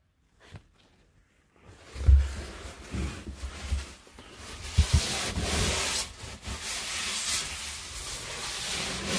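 A few low thumps about two seconds in, then a paper towel rubbed across the wooden floor of an under-sink cabinet: a steady scrubbing hiss.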